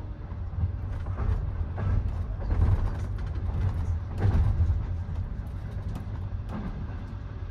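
Moving passenger train heard from inside the carriage: a steady low rumble with scattered creaks and knocks from the car body, swelling louder twice in the middle.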